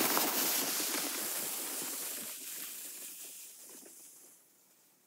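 Footsteps crunching in deep snow and a sled dragged on a rope scraping over the snow, fading steadily as the walkers move off until they can no longer be heard near the end.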